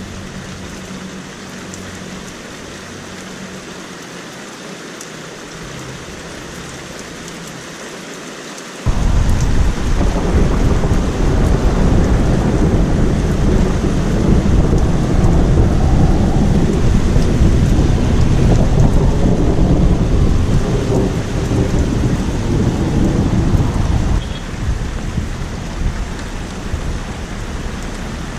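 Thunder over steady rain: the thunder starts suddenly about nine seconds in and rolls on as a loud, deep rumble for about fifteen seconds before easing back to the rain.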